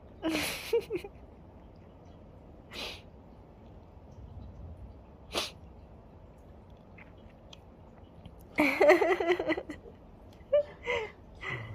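Ragdoll kitten sneezing several times, short sharp sneezes a few seconds apart: a symptom of its feline herpesvirus infection.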